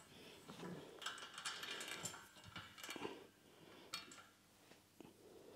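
Faint rustling and a few light clicks as hands work on fittings under a steel trailer frame, with one sharper click about four seconds in.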